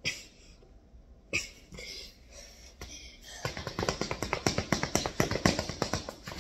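Sneakered feet pattering quickly on a tile floor, running in place: a fast run of light footfalls, several a second, that starts about halfway through and lasts about three seconds.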